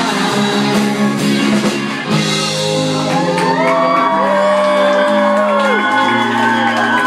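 Live rock band with electric guitars and drum kit playing, with voices singing long held notes over it through the middle.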